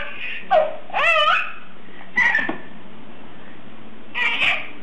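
A baby squealing and shrieking with laughter in four short bursts, each rising and falling in pitch, the clearest about a second in.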